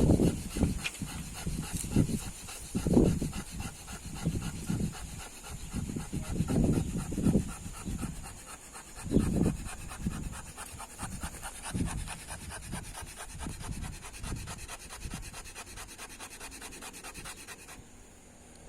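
Fire plow in use: a wooden stick rubbed back and forth along a groove in a wooden board, in uneven scraping strokes that grow weaker in the second half. A fast, even high pulsing runs underneath and stops near the end.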